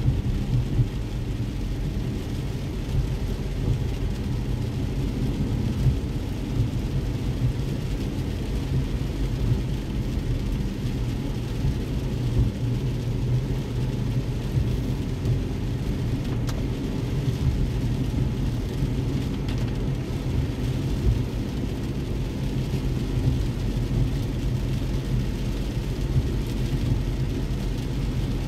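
Steady low rumble of a car driving on wet roads, heard from inside the cabin, with an even hiss of rain on the car over it.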